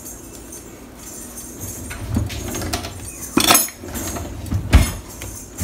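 Kitchen utensils knocking and clinking, with two sharp knocks about three and a half and five seconds in, over a faint steady sizzle of garlic frying in oil in an aluminium pressure cooker.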